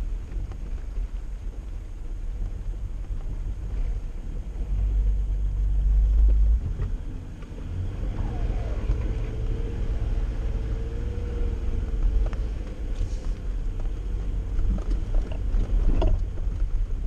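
Jeep 4x4's engine running low and steady as it drives a sandy off-road trail. It grows louder about five seconds in, drops briefly around seven and a half seconds, then carries on steadily.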